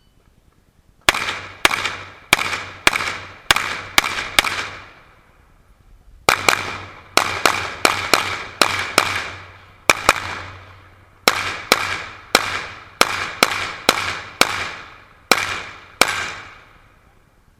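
Rapid pistol fire on an IPSC course of fire: about two dozen 9mm shots in quick strings, each crack followed by a ringing echo. A pause of about a second and a half comes around five seconds in, with shorter breaks later between target arrays.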